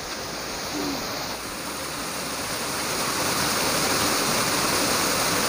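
Steady rush of a hill river flowing over its bed, growing louder about halfway through.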